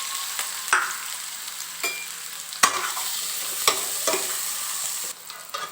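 Sliced onions and green chili sizzling in oil in a pan while being stirred, the utensil knocking and scraping against the pan about six times.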